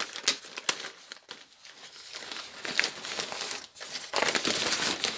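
Paper wrapping crinkling and rustling as hands work at it, in irregular bursts with small sharp crackles.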